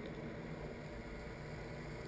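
Underwater ambience through the camera: a steady hiss with a low hum underneath.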